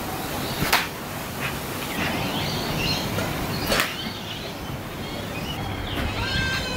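A thrown steel batarang strikes a wooden tree trunk twice, about three seconds apart, with a couple of fainter knocks; birds chirp in the background.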